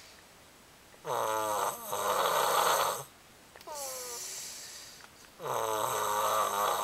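Snoring: three loud snoring breaths about two seconds apart. Each begins with a falling whistling note and goes into a raspy rattle; the middle one is quieter.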